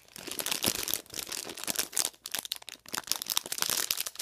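Thin clear plastic bag crinkling and crackling in the hands as it is squeezed and turned, a dense run of crackles with a few brief lulls.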